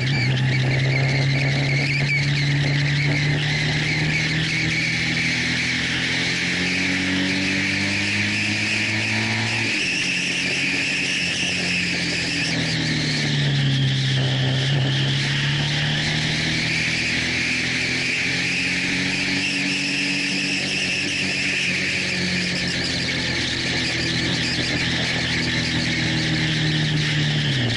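Honda VFR1200's V4 engine heard onboard at track speed, its pitch climbing and falling with throttle and gear changes, with a sharp drop about ten seconds in. A steady rush of wind runs underneath.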